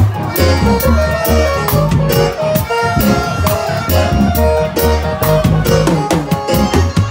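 A band playing instrumental music during a sound check, with a steady beat and a strong, low bass line under held melody notes.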